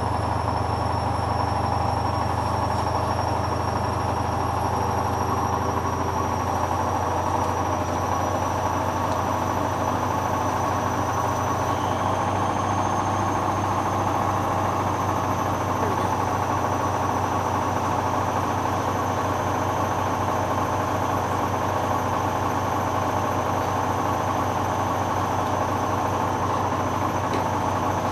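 Hoover washing machine running steadily through its final spin stage: a continuous low drum-and-motor hum with a thin high motor whine that rises slightly over the first half. The load is very unbalanced, and the machine keeps redistributing it rather than reaching a full spin.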